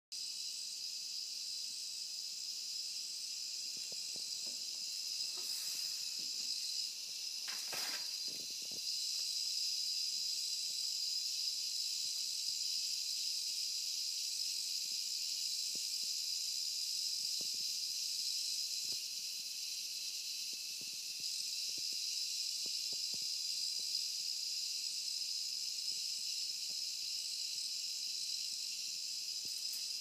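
Electronic cicada chorus from analog circuits wired into a painting: a steady, high, hissing buzz, with a couple of soft knocks about a quarter of the way in.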